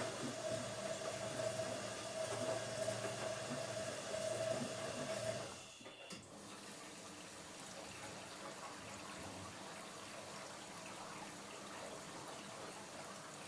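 Washing machine running with a steady motor hum and tone, which cuts off abruptly about five and a half seconds in. A quieter, even hiss of water, like the drum filling, continues after it.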